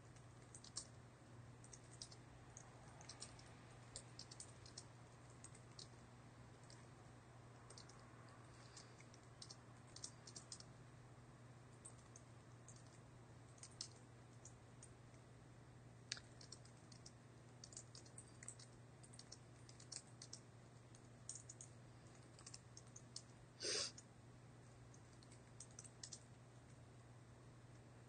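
Faint, irregular typing on a computer keyboard, key clicks coming in uneven runs over a steady low hum. About two-thirds of the way in there is one brief, louder noise, the loudest sound here.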